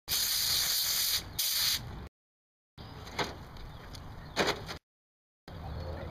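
Compressed air hissing from an air-hose tool in two bursts, the first about a second long and the second shorter, followed by quieter handling noise with a couple of metal knocks. The sound cuts out to dead silence twice.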